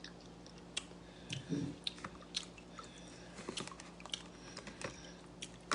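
A person chewing stewed fish head, with scattered small wet clicks and smacks of the mouth and a short hum about one and a half seconds in.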